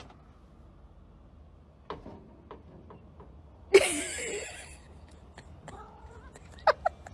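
A pet's short call, noisy with a bending pitch, about four seconds in, amid a few faint clicks and taps.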